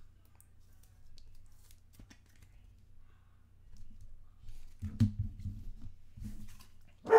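Faint handling of trading cards: soft rustles, light clicks and a few small taps. Right at the end a dog barks once, loudly.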